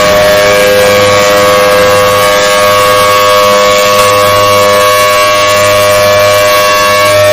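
Emergency Alert System-style alarm tone, electronically generated and held steady at a very loud level. It is a cluster of fixed pitches, overdriven into a harsh, hissy sound, with a low hum under it that swells and fades every second or two.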